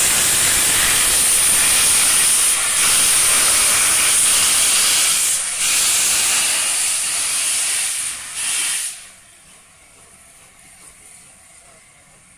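Steam hissing loudly from the open cylinder drain cocks of LNER A4 Pacific locomotive No. 4498 as it pulls away with its train, clearing condensed water from the cylinders. The hiss stops abruptly about nine seconds in, leaving only a faint background.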